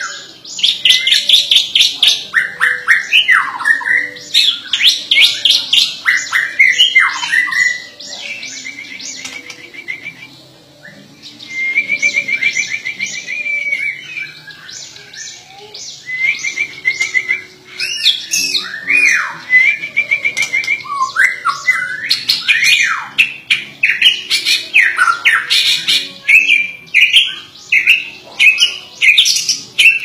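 White-rumped shama (murai batu) singing in full voice in a cage: a long, varied song of loud sweeping whistles, rapid chattering phrases and short trills. It eases off briefly about a third of the way in, then resumes.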